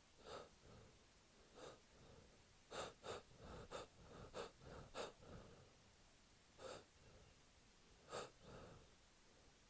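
A man's quiet, sharp gasping breaths, a dense cluster of them about three to five seconds in and a few spaced out before and after: the catching inhalations of a sneeze build-up during a cold.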